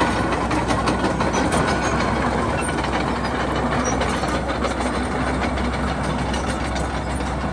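Komatsu D31PX bulldozer's diesel engine running steadily.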